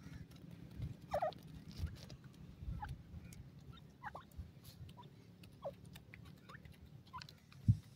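Grey francolins giving soft, short, falling call notes every second or so. Low scuffing thumps run underneath, with one louder thump near the end.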